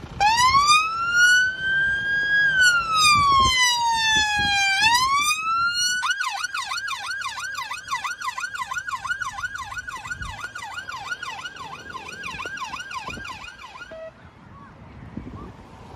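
Electronic emergency-vehicle siren: a slow wail rising and falling for about six seconds, then switching to a fast yelp of roughly four sweeps a second, which cuts off about two seconds before the end.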